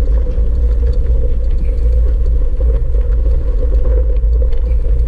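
Steady, loud low rumble with a constant hum, the noise of travelling along a road at speed: wind and road noise against the microphone while riding.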